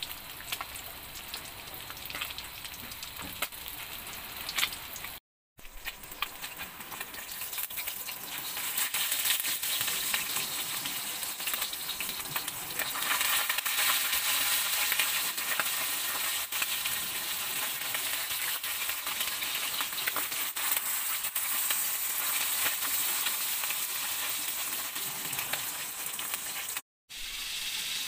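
Whole bilong-bilong (moonfish) frying in hot oil in a wok: a steady sizzle with dense crackling, louder from about six seconds in, broken briefly twice by sudden dropouts.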